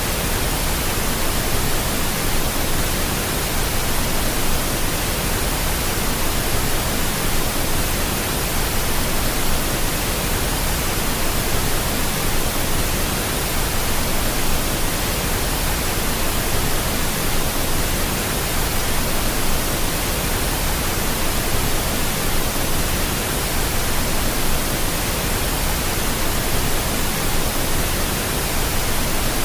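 Pink noise: a steady, even hiss spread across all pitches, without change or events.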